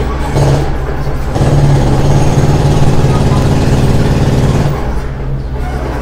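Construction-site machinery engine running with a steady low rumble, working harder and louder from about one and a half seconds in until nearly five seconds in, then settling back.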